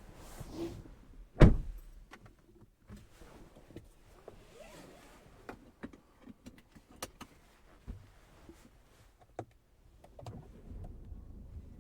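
Inside a car, one loud thump about a second and a half in, then scattered light clicks and taps over quiet.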